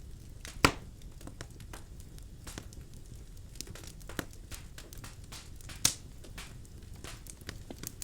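Birchwood fire crackling in a fireplace: a steady low rumble of flames with scattered sharp pops and snaps, the loudest about half a second in and again near six seconds.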